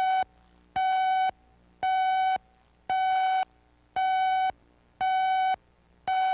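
Countdown beeps over a commercial's videotape slate: a buzzy electronic tone about half a second long, sounding once each second in step with the on-screen countdown.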